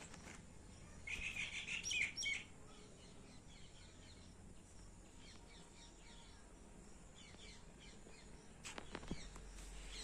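Small birds chirping: a quick burst of rapid high chirps and short falling notes about a second in, lasting a second and a half, then faint scattered chirping. A couple of faint taps near the end.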